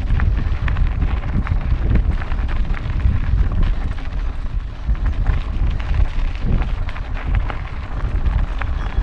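Heavy wind rumble buffeting the microphone of an action camera on a moving mountain bike, with the crunch of tyres on a gravel road and frequent small clicks and rattles.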